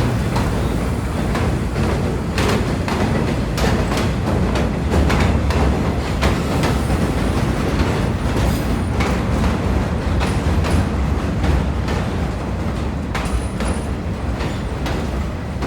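NYC subway garbage work train of R33WF work motors and an R134 car passing, a steady loud rumble with irregular clacks of the wheels over the rail joints.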